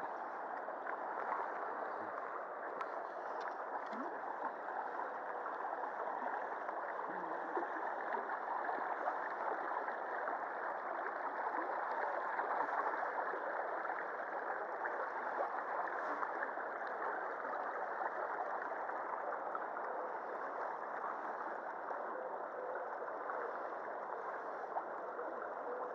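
Shallow river water running steadily over rocks and stony riffles, an even rushing babble with no breaks.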